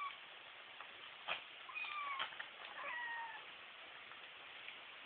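Kittens mewing: a few short, high calls, each falling in pitch, with a couple of sharp taps among them.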